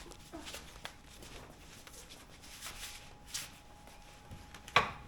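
Faint shuffling and handling noises with small clicks, and one sharp knock near the end.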